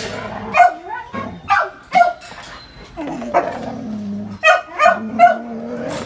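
A dog barking in play at another dog through a wire kennel fence: about six short, sharp barks, with lower drawn-out vocal sounds between them.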